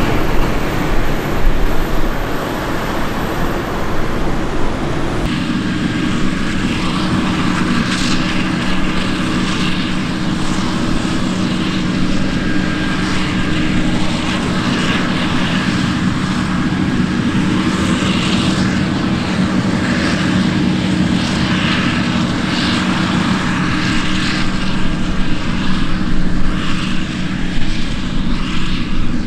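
Claas Xerion tractor working on a maize silage clamp, a rough steady engine noise. About five seconds in it changes to a Claas Jaguar forage harvester chopping maize: a steady engine drone with a faint whine on top and the hiss of chopped crop blowing out of the spout.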